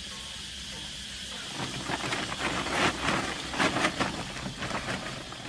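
Water splashing in a run of irregular bursts, the loudest a little under halfway through: a big fish thrashing at the surface as it is brought in.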